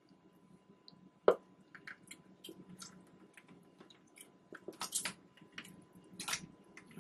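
Soft wet squishing and scraping of ripe mango being peeled with a hand peeling tool on a wooden cutting board. There is a sharp knock about a second in and a few louder scrapes near the end.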